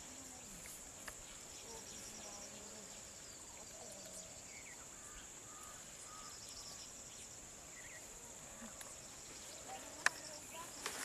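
Faint, steady high-pitched drone of insects such as crickets, with quiet murmuring voices and a sharp click about ten seconds in.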